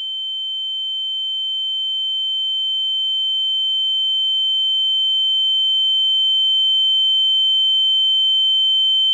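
Steady, piercing high-pitched electronic tone that slowly swells louder, with a fainter lower tone beneath it.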